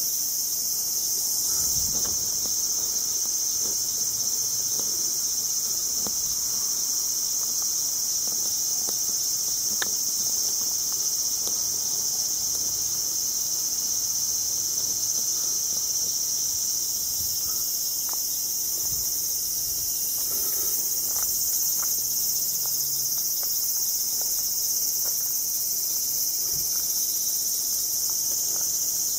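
Steady, high-pitched chorus of insects, with a few faint ticks.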